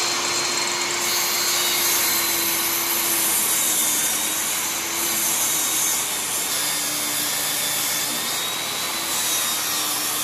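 Table saw ripping a 2x4 lengthwise down the middle with the blade tilted to a 30-degree bevel. The blade cuts through the wood under load, a loud, steady sawing noise with a steady hum beneath it.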